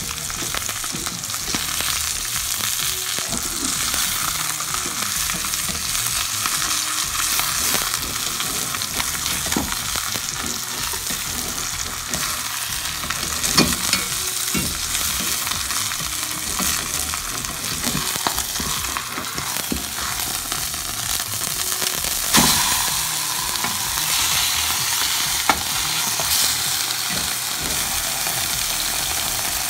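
Hot oil sizzling steadily around milkfish frying in a cast-iron skillet. A few sharp scrapes and knocks of the spatula against the pan cut through the sizzle, the loudest about halfway through and about three-quarters of the way in.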